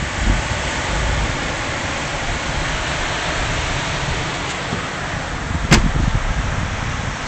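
Steady rustling of coconut palm fronds with wind noise, and one sharp knock about six seconds in.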